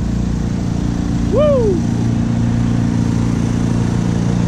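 Steady low drone of engines running, with one rising-and-falling 'woo!' shout about a second and a half in.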